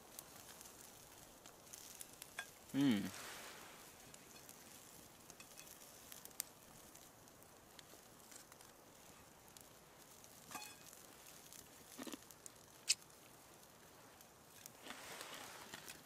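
Faint crackle of a small dying campfire, with a few sharp clicks scattered through it. A short hummed voice sound, falling in pitch, comes about three seconds in from the man eating.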